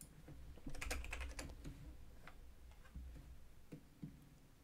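Computer keyboard and mouse clicks: a quick run of clicks about a second in, then a few scattered single clicks, over a faint low hum.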